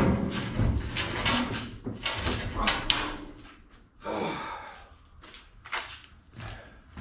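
Knocks and clunks of a car chassis being shifted by hand, busiest in the first half and sparser after about four seconds.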